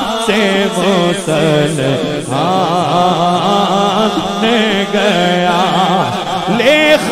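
Male naat reciter singing a devotional naat into a microphone, a chanted melody that wavers and bends with ornaments over a steady low drone, breaking briefly about two seconds in.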